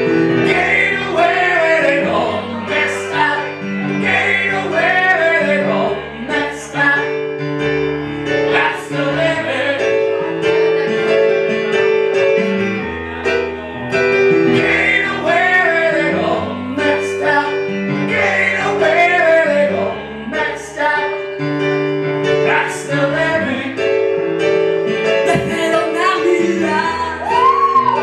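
Live song: an electric keyboard plays held chords while a woman sings a wavering melody over it.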